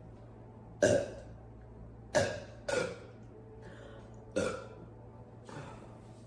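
A young woman burping: four short burps over about four seconds, each starting suddenly and trailing off, with a fainter one near the end.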